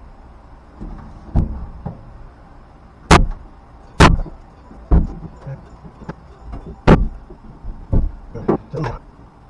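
Sharp knocks of hand tools being worked in a truck bed: about six single knocks spaced roughly a second apart, then a quick run of lighter taps near the end.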